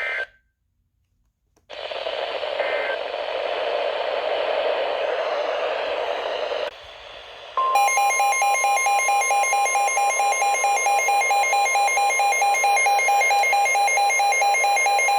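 Weather radio alert broadcast: a short chirp of data tones cuts off into a second of silence. About five seconds of radio hiss follow. Then, about seven and a half seconds in, the steady NOAA Weather Radio warning alarm tone starts, with a rapid electronic beeping laid over it that sounds like an alarm clock.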